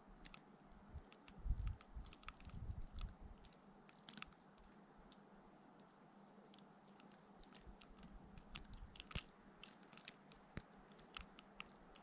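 Faint, irregular ticking and pattering of wind-driven snow striking the microphone in a snowstorm, with low gusts of wind buffeting the microphone in the first few seconds.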